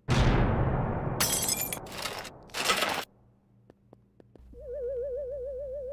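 Cartoon soundtrack effects: a sudden noisy burst at the start that dies away, two more short noisy bursts, a few faint clicks, then from about four and a half seconds a wavering, theremin-like tone held on one pitch.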